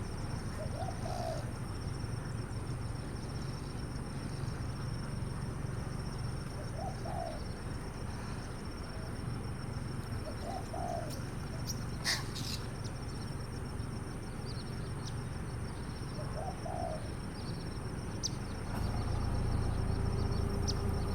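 A dove cooing in short low calls, about five of them a few seconds apart, over a steady low hum.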